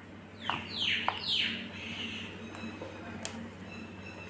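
A bird calling three quick falling notes in a row, each sweeping down in pitch, followed a couple of seconds later by a single sharp click.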